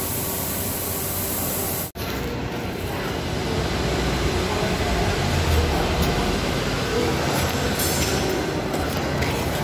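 Steady rumbling background noise with a hiss. It drops out for an instant about two seconds in.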